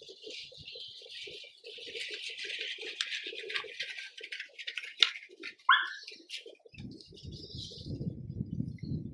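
Wild birds calling and chirping, with one sharp falling call a little past halfway. A low rumble joins near the end.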